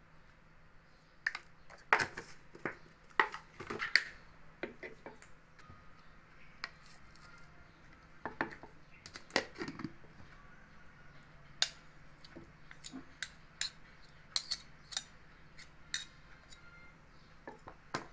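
Metal spoons knocking, clicking and scraping against a wooden mortar as a dressing is stirred in it, in irregular taps of varying loudness.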